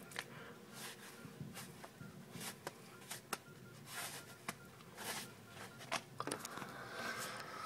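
Quiet indoor room sound close to the microphone: scattered sharp clicks and a handful of short hissing puffs, with a steadier hiss near the end.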